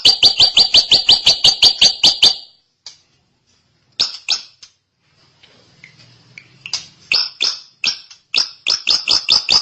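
Drongo (srigunting) singing: a fast train of sharp repeated notes, about six a second, that breaks off about two seconds in, a few scattered notes in the middle, then the fast train again near the end.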